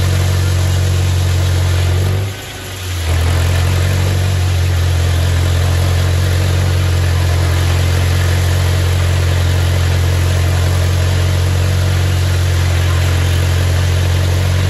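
Straight-piped Farmall Super M tractor's four-cylinder engine running steadily under load, driving a sawmill whose blade is cutting a board from a log. The sound dips briefly about two seconds in, then comes straight back.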